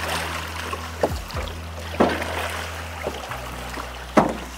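A boat running with a steady low drone, its hull taking four sharp knocks; the loudest comes near the end. Music plays over it.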